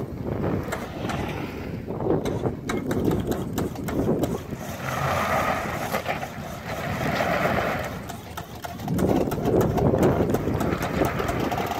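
A vehicle's engine running and swelling in revs under load while a stuck pickup is being recovered, with wind rumbling and crackling on the microphone.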